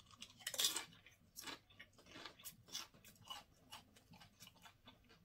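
Crunching and chewing of a Doritos tortilla chip in the mouth: a run of irregular crisp crunches, the loudest as it is first bitten about half a second in.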